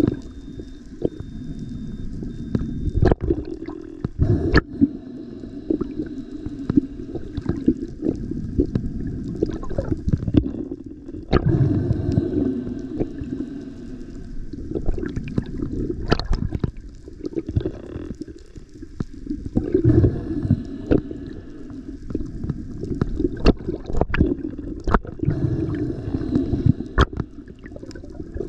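Underwater sound through an action camera's housing: a low, wavering rumble of moving water with many sharp, irregular clicks and pops.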